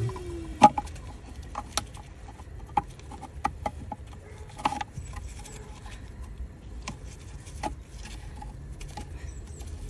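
Scattered light plastic clicks and taps from a gloved hand handling the wiring connector on a BMW E90's ABS/DSC unit, with the sharpest click just under a second in.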